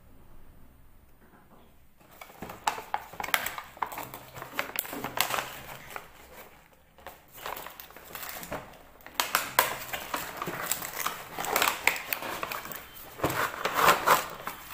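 Cardboard toy box being pried and torn open by hand: a run of crackling, crinkling and scraping that starts about two seconds in and gets louder in the last few seconds.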